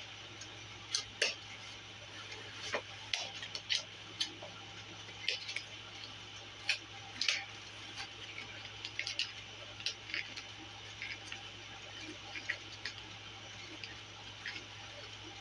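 Cardboard mailing box and its packaging being handled and opened by hand: irregular light clicks, taps and scrapes, about one to three a second, over a steady low hum.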